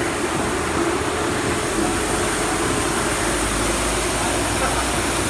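A vertical grain dryer running: a steady mechanical drone with an even rush of air.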